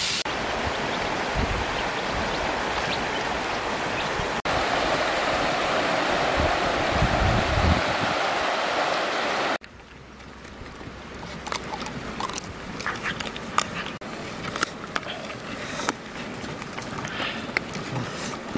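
A steady rushing of stream water for the first half. After a sudden drop in level, a dog and a puppy chew fish scraps from a bamboo trough, with irregular crunching and clicking from the bites.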